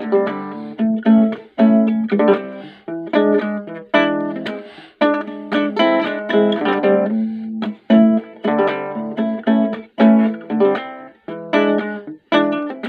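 Small nylon-strung acoustic guitar played solo: a slow tune of plucked notes and chords, each struck sharply and left to ring and die away over a recurring bass note.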